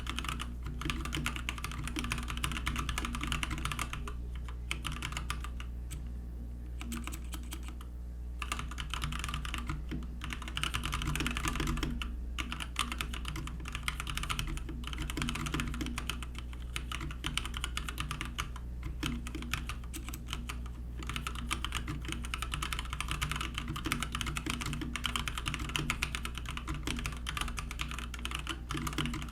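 Typing on a Keychron K6 mechanical keyboard: a fast, continuous clatter of keystrokes, broken by a few short pauses in the first several seconds.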